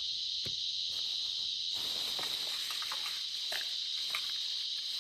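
Steady, high-pitched insect chorus, a continuous shrill drone, with a faint click about half a second in.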